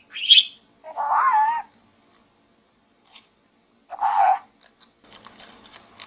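Budgerigar chattering with its head inside a dried gourd: a short high chirp, then a wavering warble about a second in and another short call at about four seconds. Faint scratchy sounds follow near the end.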